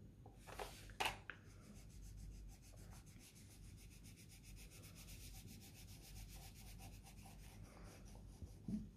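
Crayons scribbling on a colouring-book page: a faint, quick, even back-and-forth rubbing, after two light clicks about a second in as a crayon is dropped into its box.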